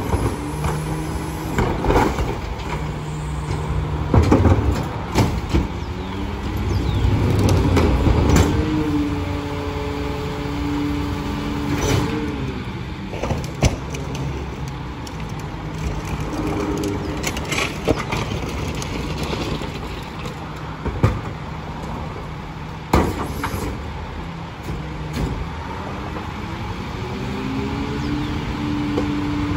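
Freightliner Econic garbage truck with a McNeilus rear-loader body working its route: the engine revs up and holds for a few seconds at a time, three times, as the hydraulic packer cycles, then drops back to idle. Sharp clanks and bangs of metal and trash come in between.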